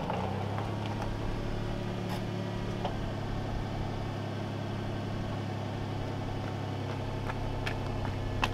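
Car engine idling with a steady low hum, with a few faint clicks over it.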